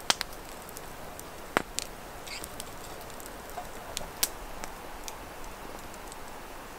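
Light rain: a steady hiss with irregular sharp drops tapping.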